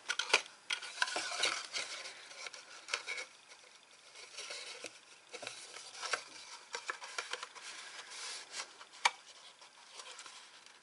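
Paper box being handled and squeezed while a tuck-in flap is worked into its slot: paper rustling and scraping with many small taps and clicks, and one sharper tap about nine seconds in.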